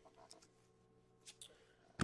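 Near silence: room tone, with a few faint clicks of trading cards being shuffled in hand, once early and again around the middle.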